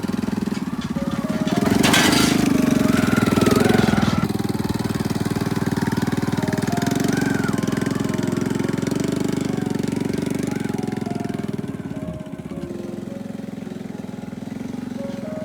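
Background music with a melody of short stepped notes, over a steady, rapidly pulsing low mechanical drone. A louder burst of noise comes in about two seconds in and lasts a couple of seconds.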